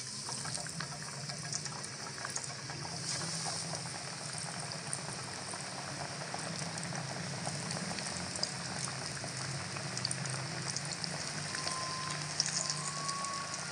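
Batter-coated rohu fish pieces deep-frying in hot oil in a karahi: a steady bubbling sizzle with dense fine crackling.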